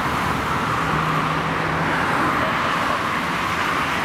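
Steady road-traffic noise, with cars passing close by.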